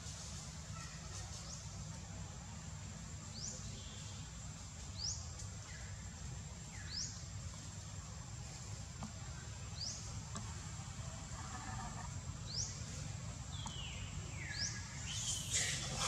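Outdoor tree-canopy ambience: a bird gives short rising chirps every second or few, over a steady high insect drone and a low rumble. Near the end come a couple of falling calls and then a louder, harsher burst of calling.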